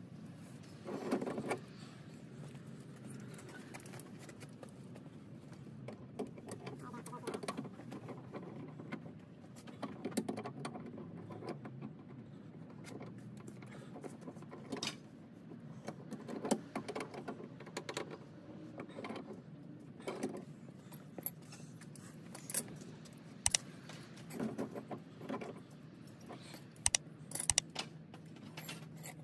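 Irregular metallic clinks and taps of brass pipe fittings and tools being handled, with sharper clicks bunched together in the last several seconds.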